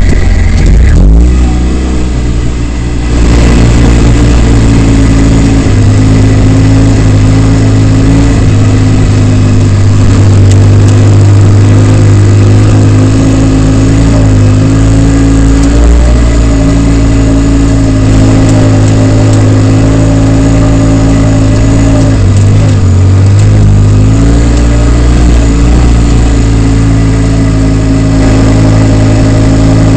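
Polaris RZR side-by-side's engine running loud under changing throttle while driving a dirt trail, heard from inside the open cab. The revs sag briefly about a second in and again a little past twenty seconds in, then pick back up.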